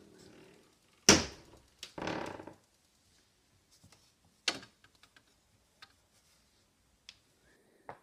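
Refrigerator door being opened and things on its glass shelf handled: a sharp knock about a second in, a short rustle, then a click and a few light taps.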